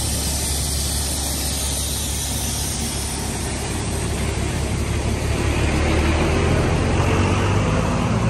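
Large decorated fun-ride truck rolling slowly past close by: a steady engine rumble with road noise, growing louder in the second half as it comes alongside.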